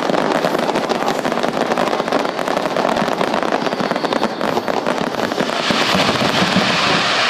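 Fireworks going off: a dense, continuous run of rapid pops and crackles, with a hissing crackle growing louder from about five and a half seconds in.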